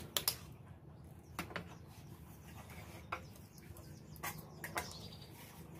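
Metal spatula and chopsticks clinking now and then against an aluminium wok and china plates while food is served, a few sharp ticks spread over a faint background.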